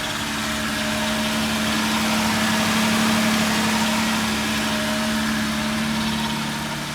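2017 Nissan GT-R's twin-turbo V6 idling steadily, running on its own after the ECU was flashed back to the stock tune.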